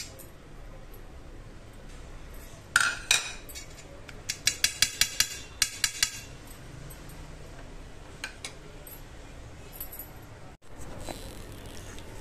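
A steel spoon clinking and tapping against a steel plate as spice paste is scraped off it: two knocks, then a quick run of about eight ringing taps.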